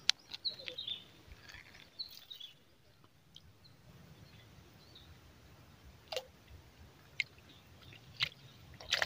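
Quiet background with a few faint bird chirps in the first two seconds and a handful of scattered light clicks.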